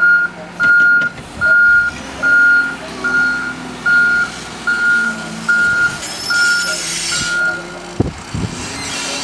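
Backup alarm of a reversing vehicle beeping, ten evenly spaced high beeps a little faster than one a second, which then stop. A hiss and a sharp knock come near the end.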